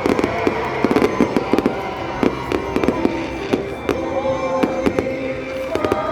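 Fireworks going off in a dense barrage: rapid sharp cracks and pops, several a second, with music playing underneath.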